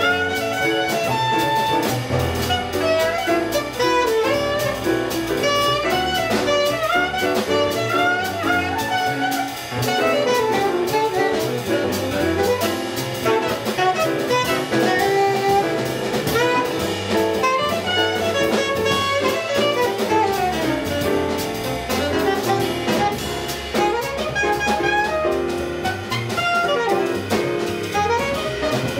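Live jazz quartet playing: alto saxophone melodic lines over piano, upright bass and drum kit, running continuously.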